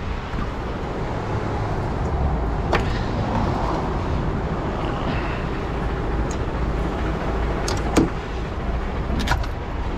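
Truck diesel engine idling steadily, with a few sharp clicks and knocks of hand work, the loudest near the end.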